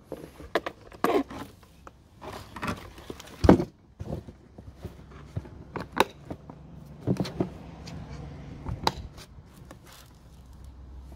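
Knocks, clicks and scrapes of a hard plastic weatherproof enclosure being handled, closed and set down on stones, with the loudest knock about three and a half seconds in.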